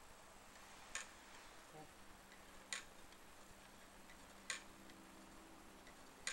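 Faint sharp clicks, four of them at an even pace of about one every 1.8 seconds, from the DJI Phantom 2 Vision+ camera gimbal as it moves the camera after power-up, over a faint steady hum.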